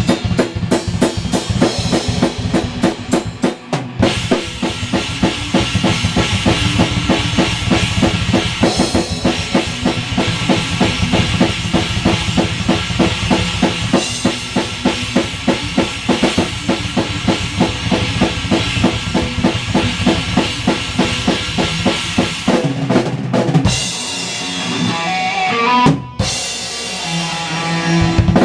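Drum kit played live with a fast, even beat of kick and snare, and sustained low instrument tones underneath in a metal style. About 23 seconds in the steady beat breaks up into looser, scattered hits.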